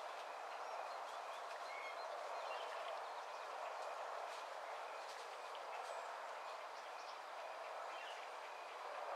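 Faint outdoor ambience at a pond: a steady hiss with a few faint short bird calls and clicks scattered through it.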